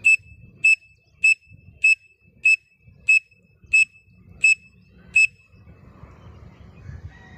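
Pen cap blown as a whistle to imitate a grey francolin (teetar) call: nine short, sharp whistle notes at one high pitch, about two-thirds of a second apart and slowing slightly, stopping about five seconds in.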